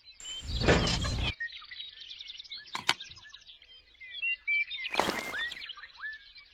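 Small birds chirping, many quick overlapping chirps. A loud rushing noise about a second long comes near the start, a sharp click about three seconds in, and another short rush of noise about five seconds in.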